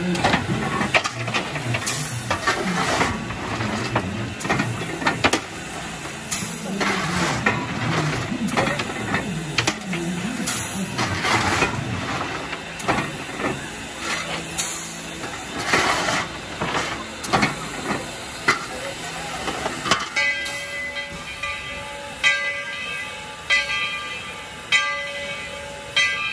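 Steam locomotive hissing steam, with irregular loud blasts. About 20 seconds in, its bell starts ringing steadily, about once a second.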